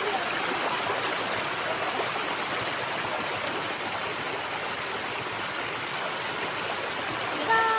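Waterfall water rushing steadily, a fast, strong flow. A brief pitched sound, likely a voice, comes in near the end.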